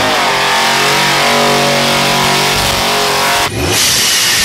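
Loud Chevy truck engine running hard and held near steady during a burnout. It cuts off abruptly about three and a half seconds in, giving way to an intro sound effect with a short rising sweep.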